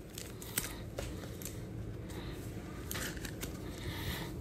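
Faint clicks and rustles of a trading card being handled and slid into a clear rigid plastic card holder, over a low room hum.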